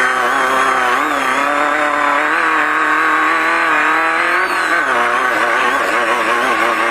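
Off-road race car engine running hard at high revs, heard from inside the car, its pitch wavering slightly up and down.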